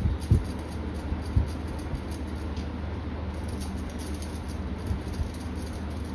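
Light metal knocks and clicks as stainless steel dish-rack parts are handled and fitted together, two sharper ones near the start, over a steady low hum.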